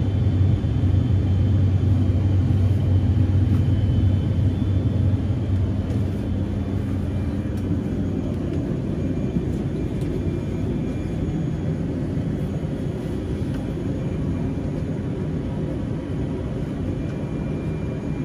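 Aircraft engines running on the ground: a steady low rumble with a faint high whine. The rumble eases slightly about six seconds in.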